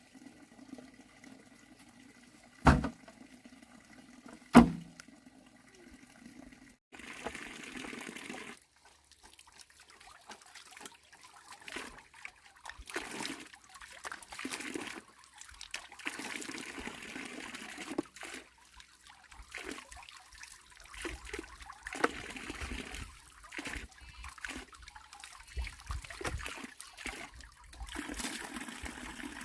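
Water splashing and pouring in irregular bursts, after two sharp knocks in the first few seconds.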